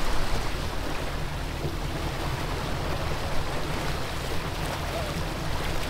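A sportfishing boat's engines running steadily under way, under the rush of water from its churning wake.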